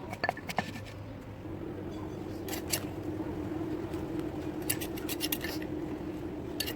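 Kitchen cooking sounds: a steady low hum with two short runs of rapid clicks and clinks, one near the middle and one near the end.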